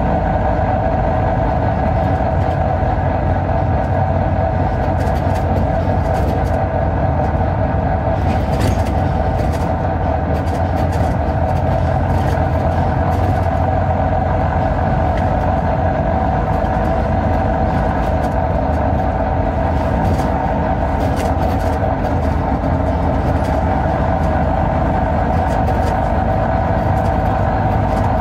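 Volvo B9TL bus's 9.36-litre Volvo D9B six-cylinder diesel engine running at a steady, unchanging speed: an even drone with a steady higher tone above it.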